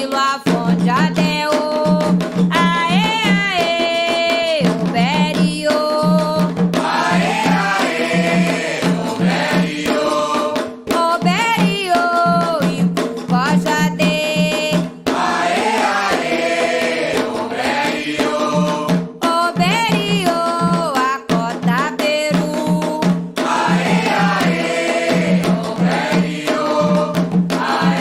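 Candomblé song for Xangô: voices singing a chant over a steady beat of drums and percussion.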